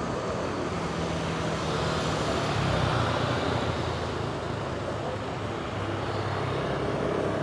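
Street traffic: a continuous wash of passing vehicle engines and road noise with a steady low engine hum, swelling a little about three seconds in.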